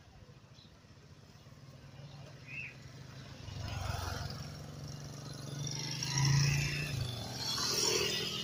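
Motorcycles riding over the level crossing and passing close by, their engines getting louder as they come near. The loudest pass is about six seconds in, and another follows near the end.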